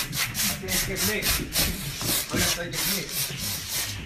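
Rapid, rhythmic rubbing strokes, several a second, rough and hissy.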